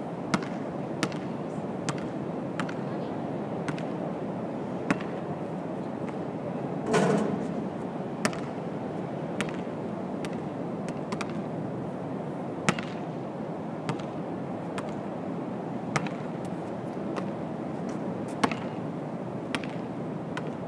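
A basketball bouncing on an outdoor court, sharp knocks spaced irregularly about a second apart over steady outdoor noise. About seven seconds in comes one louder, longer clatter.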